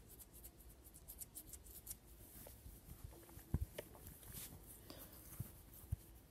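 Faint rustling and small clicks close to the microphone, with a few dull thumps. The loudest thumps come as a pair about three and a half seconds in.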